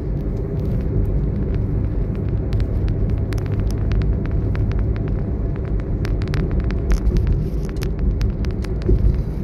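Steady low rumble of a car driving at road speed, engine and tyre noise heard from inside the cabin, with a run of many small sharp ticks through the middle.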